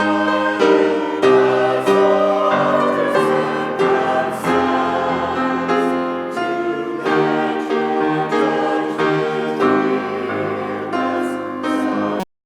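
Choir singing with piano accompaniment, in sustained chords that change every half second or so. The music cuts off abruptly near the end.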